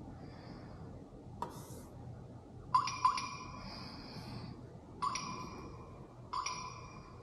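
Bright ringing dings, struck four times, each fading out over about a second.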